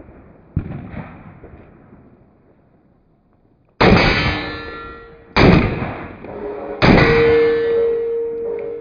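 Three loud, sharp bangs, each followed by a long metallic ringing with steady tones, the last ringing note held to the end; a fainter hit comes about half a second in.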